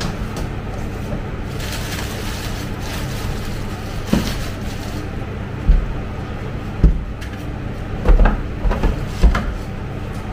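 Things being shifted on pantry shelves: a string of separate knocks and thuds, more of them in the last few seconds, over a steady low hum.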